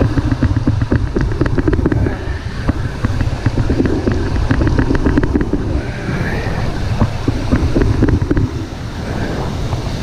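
Wind buffeting the microphone over breaking surf, with a quick run of small clicks about a second or two in.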